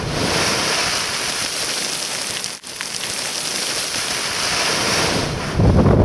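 Shattered rock and gravel from a quarry blast raining down and settling with a steady, loud hiss. A second loud, deep boom comes near the end.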